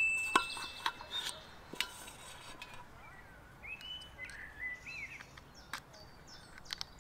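A metal clink from the Omnia oven's lid rings on and fades over about the first second, followed by scattered light clicks and taps of the oven parts being handled. A bird chirps several times in the middle.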